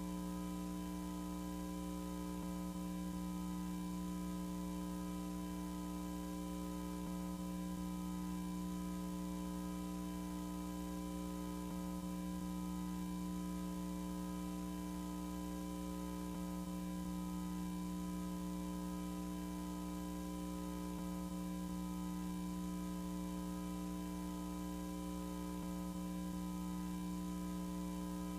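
Steady electronic hum made of several held low tones, with a fainter higher tone pulsing on and off at an even pace.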